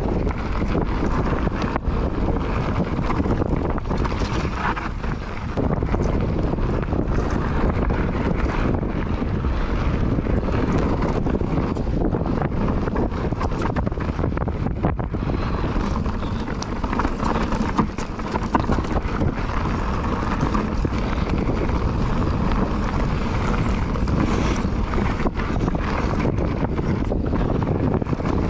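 Wind buffeting the microphone over the steady rolling of mountain bike tyres on loose gravel and stone, with frequent small knocks and rattles from the bike over the rough surface.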